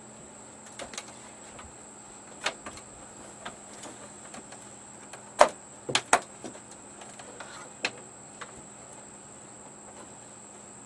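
Scattered knocks and clicks of objects being handled and set down, about eight in all, loudest about five and a half seconds in followed by a quick pair. A faint steady high-pitched whine and a low hum run underneath.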